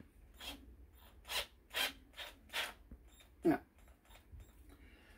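Cordless drill's keyless chuck being tightened by hand around a 24 mm hole saw, giving a handful of short rasping clicks spread over a few seconds, with no motor running.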